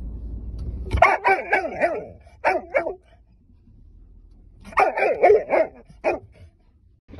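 Dog barking in quick flurries: one of about a second, two single barks just after, and another flurry about five seconds in. Before the first barks there is a low hum of the car's cabin.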